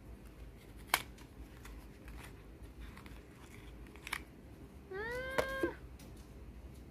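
A cat meowing once, a short call that rises in pitch and then levels off, a little past five seconds. Before it, two sharp clicks as a small cardboard perfume-sample box and its capped vial are handled, the first and louder about a second in, the second about four seconds in.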